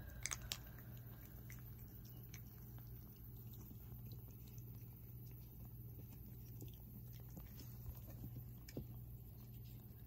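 Faint scattered clicks and crunches of puppies chewing dry kibble, over a steady low hum.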